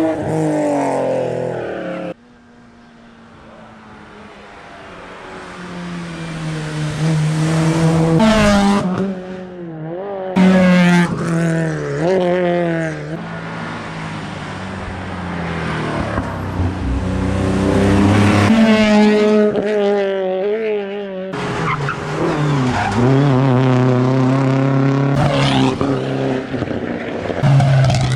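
Rally cars at full attack on a stage, engines revving hard and rising and falling in pitch through gear changes, with tyre noise. Several passes are cut together; after a cut about two seconds in, one car is heard approaching from far off and growing steadily louder.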